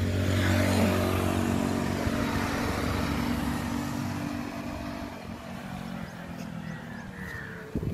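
A motor vehicle driving past on the road: a steady engine hum over road noise, loudest about a second in and then slowly fading as it moves away.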